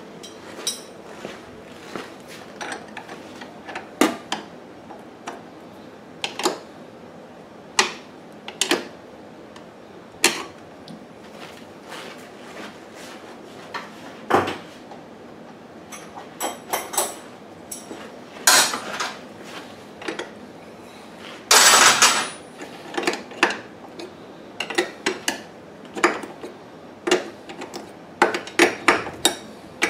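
Scattered metal clicks and clinks of hand tools and brass fuel fittings being handled and screwed together, with a louder burst lasting under a second about 22 seconds in.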